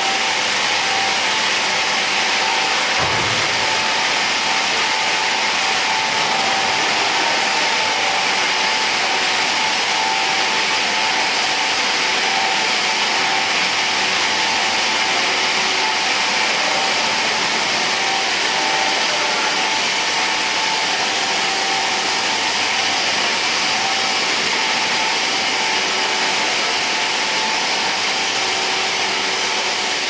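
Optical-fibre drop-cable production machinery running: a steady whirring hiss with a constant high whine. There is a single low bump about three seconds in.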